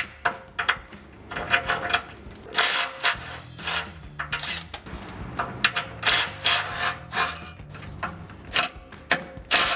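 Cordless impact wrench with a 12 mm socket loosening bolts on a truck's transmission support crossbar. It runs in several short rattling bursts, with metal clinks between them.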